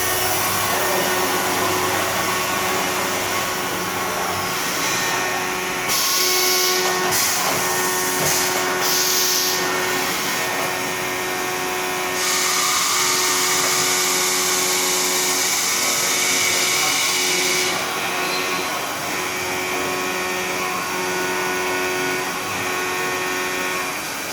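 CNC vertical machining center at work on a metal profile: a steady spindle whine with hissing cutting noise that comes in short bursts about a quarter of the way in, then in a longer stretch through the middle.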